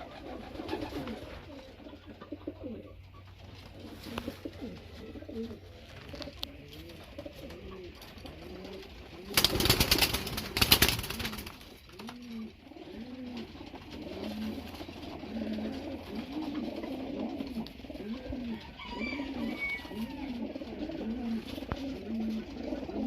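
Racing pigeons cooing, with many low coos overlapping and repeating throughout. About nine seconds in, a loud noisy burst lasts roughly two seconds.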